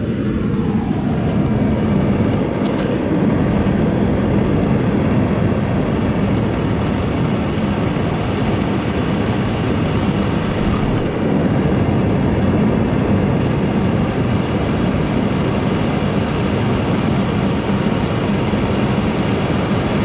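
Homemade Frosty T-style propane burner firing, a steady rushing roar of gas and air through its shortened steel tube, with no pulsing in the level.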